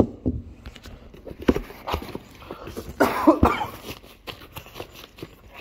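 Corrugated cardboard shipping box being handled and its flaps pulled open, with several sharp knocks and rubs of cardboard. A short cough about three seconds in.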